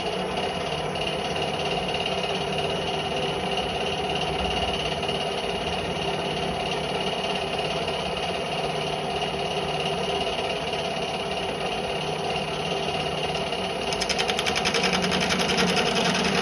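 Centec 2B milling machine running in horizontal mode, its disc cutter spinning on the arbor with a steady mechanical hum and a high whine. Near the end a fast, even chatter joins and grows louder as the cutter bites into the aluminium bar.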